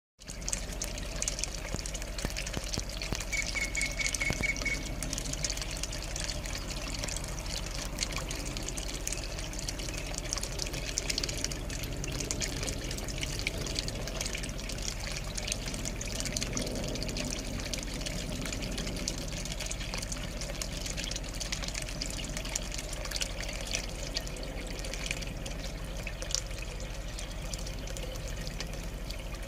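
Steady trickle of running water, with a brief high trill about four seconds in.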